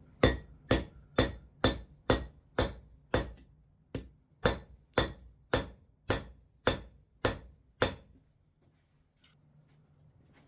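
Hand hammer striking steel in a steady run of about sixteen ringing blows, roughly two a second, stopping about eight seconds in.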